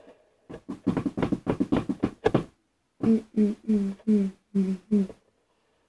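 A person's voice making rhythmic mouth sounds: a fast run of short pops for about two seconds, then six short pitched syllables, evenly spaced a little under half a second apart.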